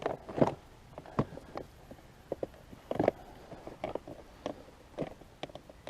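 A run of scattered light clicks and knocks as a motorcycle's rear body panel is handled and pushed, trying to seat one edge under another.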